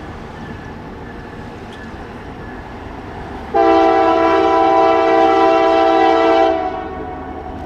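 Norfolk Southern SD70ACC locomotive's air horn sounding one long multi-note blast of about three seconds. It starts abruptly about three and a half seconds in and stands out loud over the steady noise of the train rolling past.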